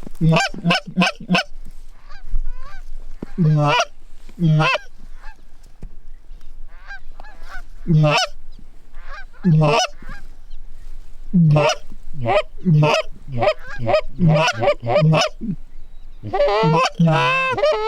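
Canada geese honking: short clipped honks and clucks in scattered groups, building into a rapid, dense run of calls near the end.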